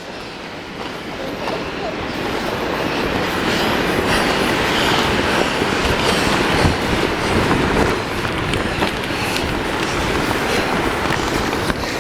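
Heavy wind, heard muffled from inside a rain jacket: a dense rushing noise that builds over the first few seconds and then holds.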